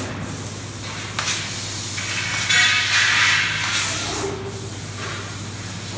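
Laser cutter working a stainless steel sheet: assist gas hissing through the cutting head's nozzle, swelling in several bursts with the longest in the middle, over a steady low machine hum.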